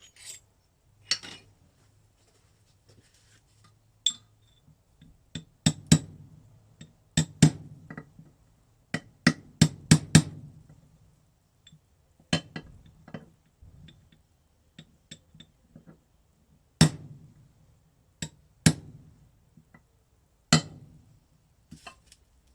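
Hammer tapping on a socket used as a drift, driving a water-pump part further down into the motorcycle engine casing. Sharp metallic knocks come in a quick run of blows a few seconds in, then as single blows a couple of seconds apart.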